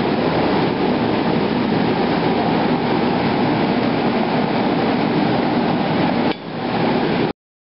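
A steady, loud rushing roar typical of a gas forge burner running in a blacksmith's shop, with no pause or change until it dips briefly about six seconds in.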